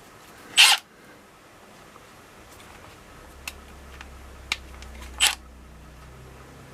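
Plastic clicks from pressing the controls on a Milwaukee M12 FUEL compact impact wrench: two sharp, loud clicks, one about half a second in and one about five seconds in, with a few lighter ticks between. No motor run is heard.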